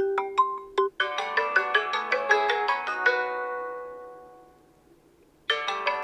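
Xiaomi Redmi K30S default ringtones previewed one after another. A melody of struck notes breaks off about a second in, and a new ringtone of quick, ringing chime notes plays and fades away over a few seconds. After a brief pause, another ringtone starts near the end.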